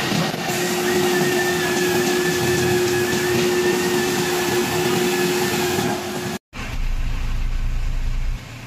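Isuzu FTR broom sweeper truck running while its hydraulics tip the rear debris hopper up: a steady mechanical drone with a held whine and a wavering higher note. Six and a half seconds in it breaks off and gives way to a lower, steadier hum.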